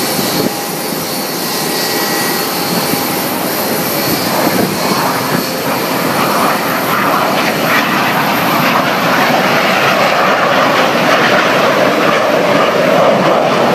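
Jet engines of the Boeing 747 Shuttle Carrier Aircraft carrying Space Shuttle Endeavour, a loud steady rush of jet noise that grows louder from about halfway through as the aircraft comes in to land.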